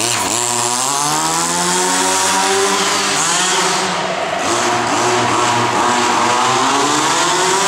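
RedCat Rampage XB 1/5-scale buggy's 30cc two-stroke gasoline engine running as the buggy drives, revving up in the first second, easing off around the middle and revving up again toward the end. The engine is being broken in on its first run.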